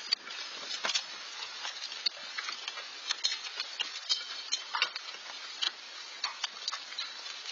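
Hailstorm precipitation falling: a steady rain hiss with irregular sharp ticks, several a second, of hailstones and drops striking the Nest camera housing and the ground around it.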